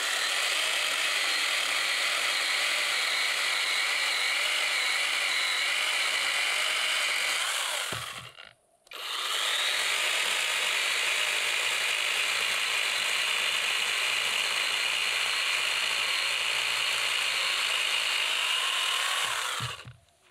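Power saw cutting firewood, running steadily in two long runs with a short stop about eight seconds in.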